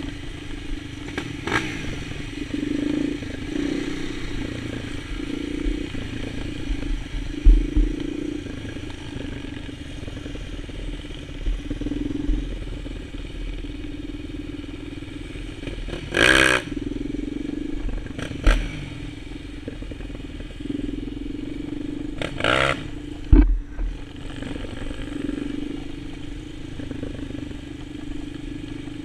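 Quad bike engine running as it rides over a dirt track, its note rising and falling with the throttle. It revs sharply twice, about halfway through and again a few seconds later, with a couple of low thumps.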